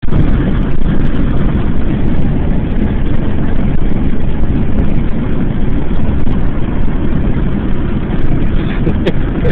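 Loud, steady rumble of a car on the road, heard inside the cabin from the back seat.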